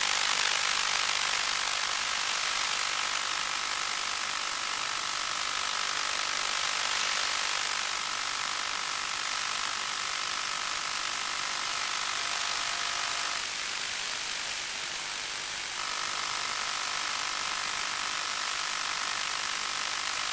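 Steady static hiss from the audio channel of an analog 1.2 GHz FPV video link, with faint steady whining tones under it. A little past the middle the tones drop out for about two seconds, then return.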